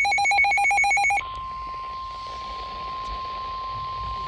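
A loud, rapidly pulsing buzzy electronic alert tone cuts off about a second in. It gives way to a single steady, quieter pure tone: the NOAA Weather Radio 1050 Hz warning alarm tone that comes before a severe thunderstorm warning.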